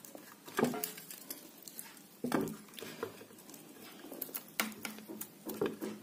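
Faint scratching and picking of fingers working at a ceiling fan's copper-wound stator, pulling the old lead wires out from the windings, with a few louder handling knocks.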